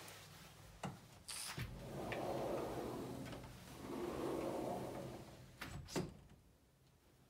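Sliding glass patio door being opened and shut: sharp clicks about a second in, two stretches of rumbling as the door runs along its track, then a sharp knock as it closes near the end.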